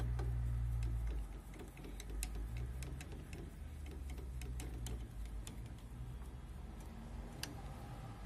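Scattered small metal clicks and ticks of a screwdriver working the screws on a dot-matrix printer's print head, over a low rumble that is loudest in the first second.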